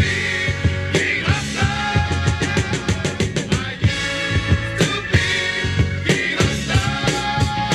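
A 1970 Philadelphia funk recording being played back: a busy drum-kit groove with active bass and held horn lines.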